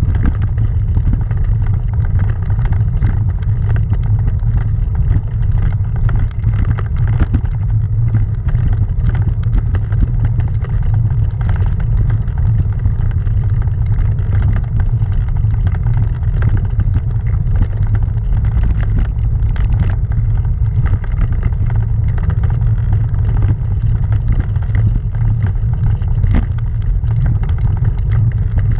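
Bicycle riding uphill over cobblestones: a steady low rumble with a dense rattle of small knocks from the stones.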